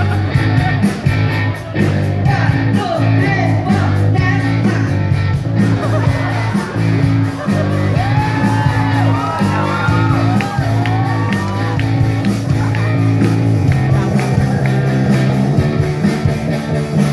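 Live rock band playing through a PA, electric guitars and bass over a steady beat, with a singer singing into a microphone; the loudest vocal lines come about halfway through.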